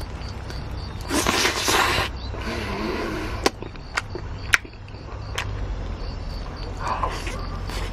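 Close-up eating sounds of sauce-coated Korean fried chicken: a loud bite and tearing of meat from the bone about a second in, then several sharp wet lip smacks while chewing, and another smaller bite near the end.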